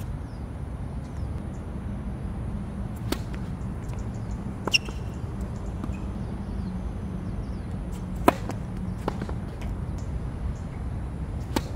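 Tennis rally on a hard court: a few sharp pops of racket strings hitting the ball and the ball bouncing, spaced a second or more apart, the loudest about eight seconds in, over a steady low rumble.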